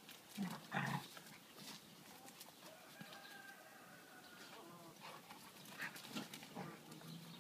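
Two dogs play-fighting, with a couple of short, loud vocal sounds about half a second to a second in and a few smaller ones near the end. A faint, drawn-out animal call sounds in the middle.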